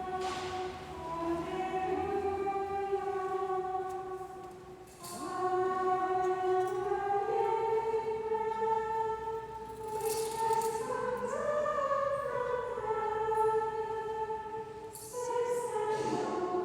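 A choir of nuns singing a chant in unison: one melodic line of long, held notes, with a short break for breath about five seconds in and again near the end.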